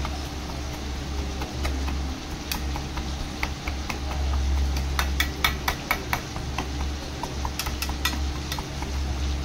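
Long steel spoon stirring and mixing a thick fish-roe pakoda batter in a small stainless steel pot. The spoon clinks irregularly against the pot's metal sides, over a steady low hum.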